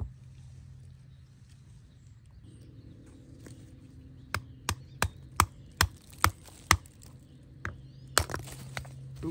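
Steel hammer striking a lightweight black rock, thought to be petrified wood, as it rests on a larger stone, to split it open. There is a quick run of about seven sharp blows a few tenths of a second apart, then a few more near the end, over a faint steady low hum.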